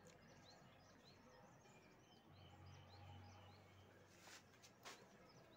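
Near silence, with a small bird chirping faintly and repeatedly in the background, about two to three short chirps a second. Two brief soft noises come near the end.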